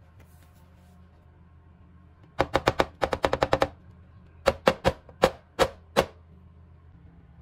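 Metal loaf tin full of cake batter being knocked down on a table: a fast run of about ten sharp knocks, a short pause, then about six more spaced further apart.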